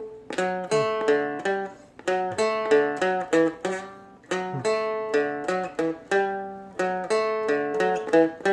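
Seagull Merlin M4 picked: a single-note melody line, about three notes a second, over drone strings that keep ringing beneath it.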